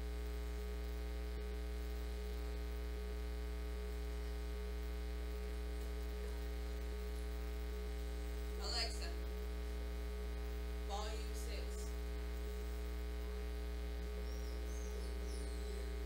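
Steady electrical mains hum picked up by the livecam's audio, with a faint tone pulsing on and off in a regular rhythm. Two brief squeaky sounds come about nine and eleven seconds in.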